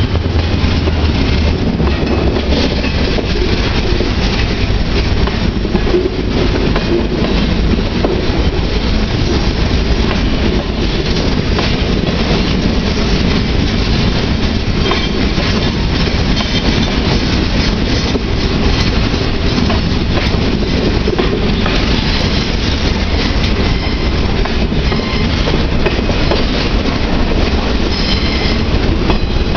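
Loaded freight train's boxcars rolling past close by: a steady rumble of steel wheels on rail with a clickety-clack over the joints and occasional high wheel squeals. The low hum of the departing EMD GP40 diesel locomotives fades away in the first second or so.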